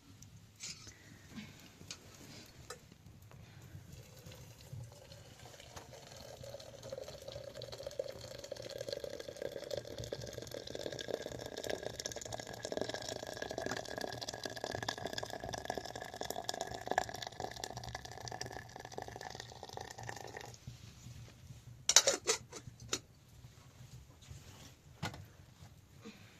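Water pouring into a container, its pitch rising steadily as the vessel fills, then stopping abruptly. A few sharp clatters follow, the first of them the loudest sound.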